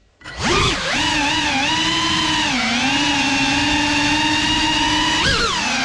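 GEPRC CineLog35 cinewhoop drone's motors and ducted propellers: cut almost to silence at the start, then spooling up within the first second into a steady buzzing whine. The pitch dips briefly midway and swoops sharply up and back down near the end as the throttle is changed.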